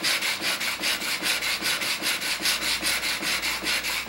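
Chisel steel being honed on a wet extra-coarse DMT diamond plate in a General sharpening jig: quick, even back-and-forth scraping strokes, several a second. The bevel is being ground down to one clean facet, with a burr already raised on the back.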